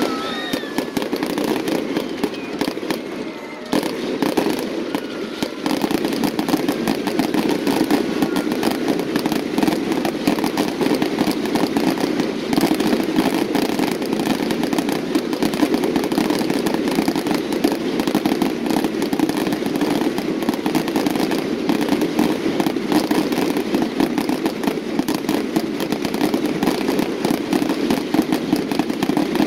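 Aerial fireworks going off in a dense, continuous barrage of bangs and crackling, with no gaps between bursts.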